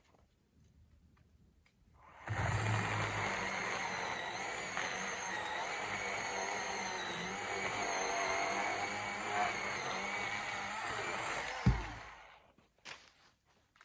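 Achiforce 20 V cordless electric chainsaw running under load as it cuts into a log for about ten seconds: a steady motor and chain whine that starts about two seconds in and stops suddenly near the end. Just before it stops there is a single sharp thump. The cut goes slowly because the chain is already a little slack.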